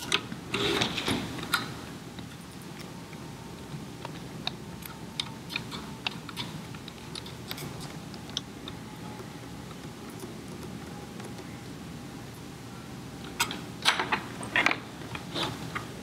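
Scattered light clicks and taps of a screwdriver and hand tools working on a metal pump housing, with a group of louder clicks about a second in and a cluster of louder knocks near the end as the metal chassis is handled.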